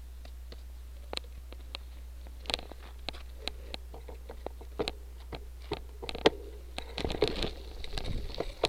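Cyclocross bike rolling over a sandy gravel shoulder: irregular sharp clicks and ticks from the tyres and the rattling bike. Wind noise on the microphone builds about seven seconds in.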